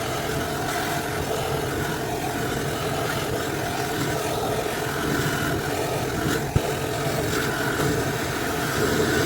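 Two blowtorches running with a steady rushing noise, heating a seized old galvanized pipe joint so its threads can be broken loose. A single sharp click about six and a half seconds in.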